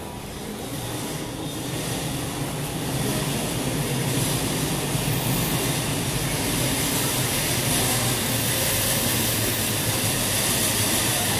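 Steady roar of city traffic noise, swelling over the first few seconds and then holding loud and even.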